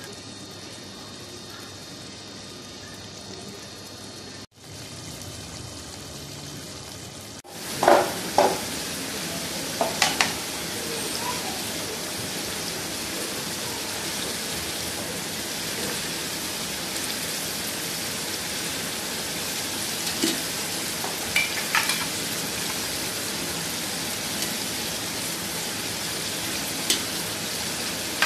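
Chicken pieces frying in oil in an aluminium pot: a steady sizzle that gets much louder about seven seconds in. Several sharp clinks of a metal slotted spoon against the pot come as it is stirred, a cluster soon after the sizzle grows and a few more later.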